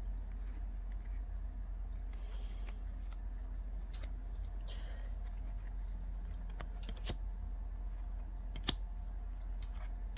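Baseball cards being flipped through by hand, one at a time: a scatter of light, sharp clicks as card edges snap and slide against the stack, over a steady low hum.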